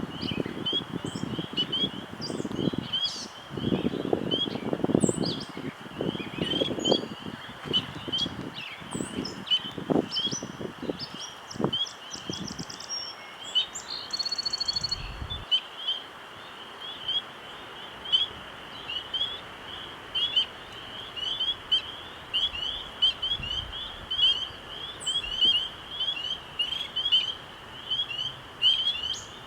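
Spring nature ambience: a steady, dense chorus of short high chirps. Low rushing gusts of wind come and go during roughly the first half, and a brief buzzing trill sounds around the middle.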